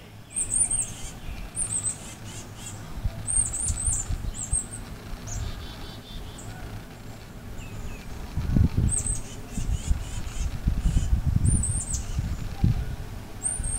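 A small bird gives short, very high chirps in clusters of two or three, repeated every second or two, over a low, irregular rumble that grows louder about eight seconds in.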